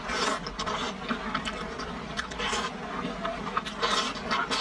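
Close-up eating sounds: wet slurping and chewing of chili-sauced food pulled in with chopsticks, in irregular bursts, loudest near the end.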